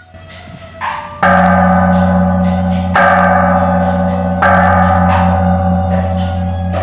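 A large temple gong struck three times, about a second and a half apart, each stroke ringing on over the last, with a low hum that pulses.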